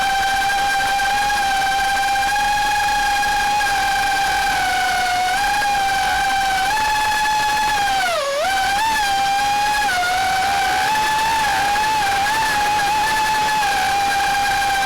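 Small drone's propellers whining at a steady high pitch. The pitch dips briefly about eight seconds in, then comes back up.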